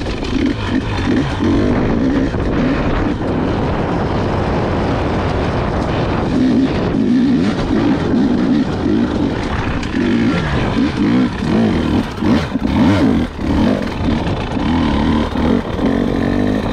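Husqvarna dirt bike engine running under load on a trail ride, its pitch rising and falling as the throttle is opened and rolled off. A few sharp knocks come about three-quarters of the way through.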